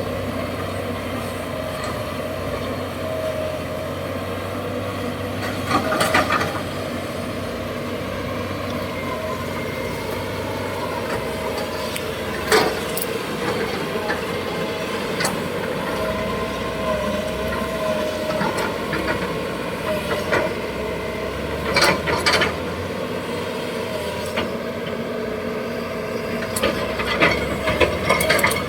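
Six-wheel dump truck's engine running steadily as it drives along a rough dirt track. Loose clunks and rattles from the body come over bumps, with sharper jolts about six, twelve and twenty-two seconds in and a run of rattling near the end.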